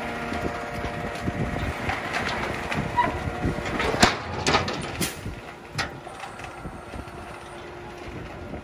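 Concrete mixer truck running at a steady idle, with metal clanks as the folding discharge chute is swung down and its sections set in place: a cluster of sharp knocks between about four and six seconds in.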